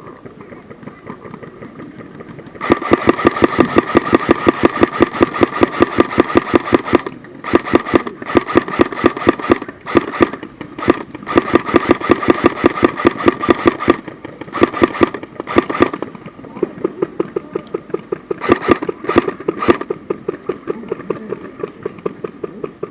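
Airsoft gun firing on full auto: long rapid bursts of sharp, evenly spaced shots starting about three seconds in, broken by brief pauses, with shorter and fainter bursts near the end.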